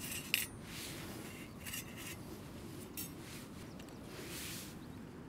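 Light clinks, scrapes and rustles of small metal alcohol-stove and windshield parts being handled and set down, with one sharp click about a third of a second in.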